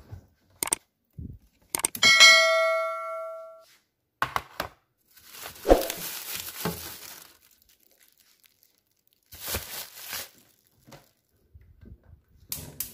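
Kitchen handling sounds: scattered clicks and knocks, one of which rings on with a bell-like ding for about a second and a half. Plastic bags and a seasoning packet rustle and crinkle as they are handled in a refrigerator.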